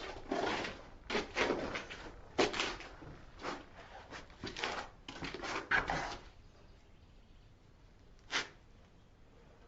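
A string of short knocks, clicks and scrapes of things being handled, over about six seconds, then one more knock near the end.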